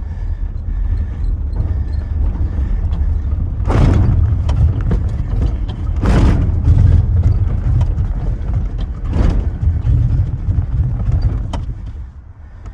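A 1993 S10 pickup rolling on pavement during a failed roll-start attempt in second gear: a steady low rumble with three loud clunks about four, six and nine seconds in. The engine does not catch, which the owner thinks is because it flooded.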